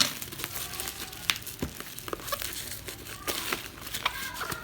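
Irregular crinkling and sharp clicking, like plastic being handled.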